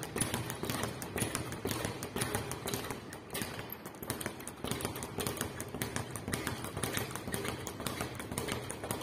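Speed bag being punched in a fast, steady rhythm: a rapid, even run of sharp knocks as the bag rebounds off its platform.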